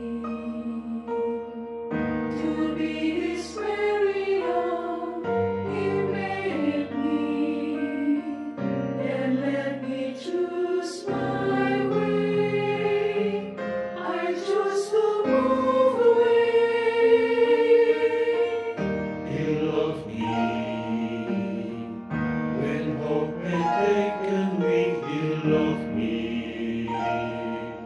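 Church choir singing a slow gospel song in long held notes.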